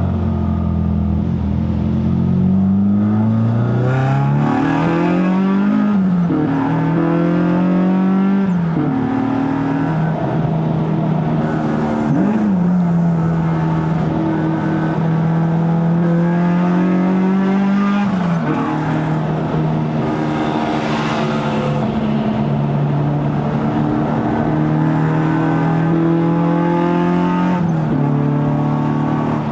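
Honda K24A four-cylinder engine with a 2.75-inch stainless straight-pipe exhaust, pulling up through the gears of a six-speed manual: the pitch climbs and drops sharply at each upshift, about three times in the first dozen seconds, then holds steady at cruise with a few more shifts later on.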